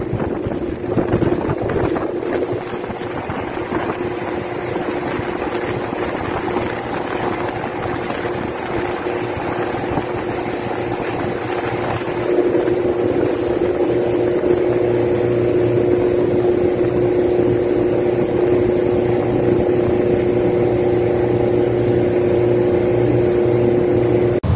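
A boat engine running steadily under a wash of wind and water noise, its hum growing louder and steadier about halfway through.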